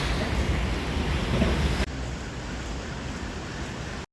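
Wind buffeting the microphone: a steady rushing noise with a heavy low rumble, which drops in level about two seconds in and cuts off just before the end.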